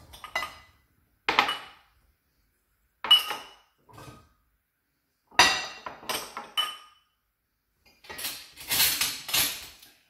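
Drinking glasses set down and clinked against each other on a worktop, in separate bursts of knocks, some ringing briefly. Near the end, a longer scraping rattle.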